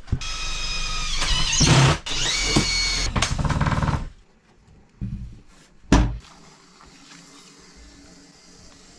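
A small electric motor, like a power tool's, runs for about four seconds with a whine that rises in pitch and then holds, and stops suddenly. About two seconds later there is a single sharp click.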